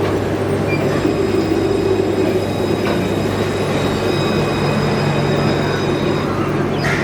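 C2-class tram running on its rails with a steady low hum, with thin high whining tones over it that stop about six seconds in.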